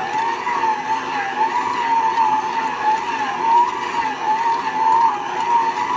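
Hamilton Beach tilt-head stand mixer's 300-watt motor whining steadily as its flat beater churns a stiff peanut-butter dough. The whine rises and dips in pitch in a regular wobble, about three times every two seconds.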